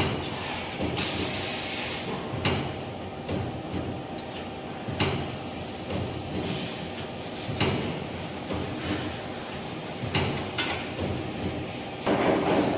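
Sharp metallic clacks evenly spaced about every two and a half seconds over a steady machine hum, from a band saw blade and a saw blade sharpening machine. A brief hiss comes about a second in.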